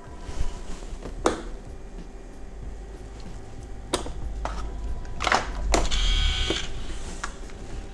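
Gauge stepper motors of a GM instrument cluster buzzing briefly about six seconds in as the needles sweep on power-up, after several sharp clicks, over a steady low hum. The motors running is the sign that the repaired cluster works again.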